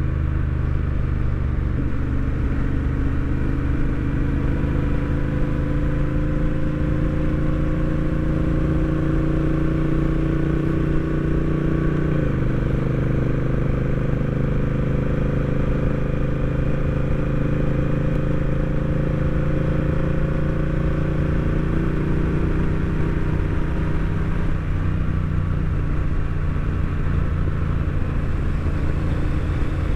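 Honda Rebel 1100 DCT's parallel-twin engine pulling on the road, its pitch rising slowly, then dropping suddenly about twelve seconds in as the dual-clutch gearbox shifts up by itself, and running on steadily after.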